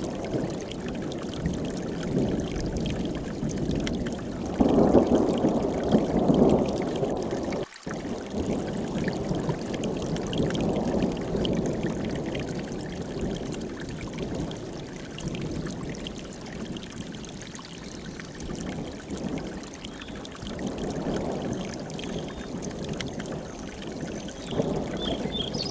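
Mountain stream running, a steady rushing of water that swells louder for a couple of seconds about five seconds in, with a momentary break in the sound about eight seconds in.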